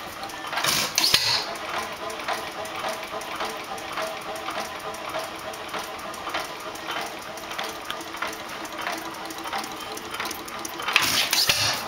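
1914 International Harvester Titan 2½ hp hopper-cooled hit-and-miss engine running, with a quick, steady clicking. Louder noisy bursts come about a second in and again near the end.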